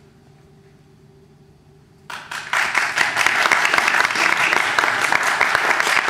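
An audience breaks into loud, sustained applause about two seconds in; before that there is only a faint room hum.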